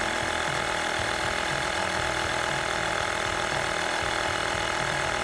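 Small 12 V portable tyre-inflator compressor built into a Vonder APC 12000 jump starter, running steadily as it pumps up a car tyre nearly to its 32 PSI set point.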